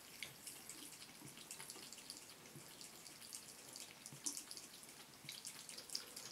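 Faint, irregular patter of water dripping from a bathroom faucet that has not been turned off all the way, into the sink, mixed with small wet clicks as a cat laps and paws at the drip. The sharpest ticks come about four seconds in and again near six seconds.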